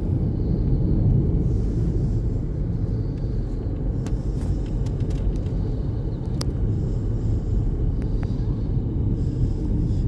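Steady low rumble of road and engine noise inside a moving car's cabin, with a few faint clicks about halfway through.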